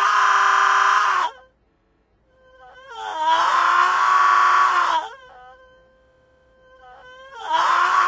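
A person's yell stretched out by scrubbing in the AudioStretch app into a drawn-out wail held on one pitch. It swells and fades three times as the same spot is gone over again.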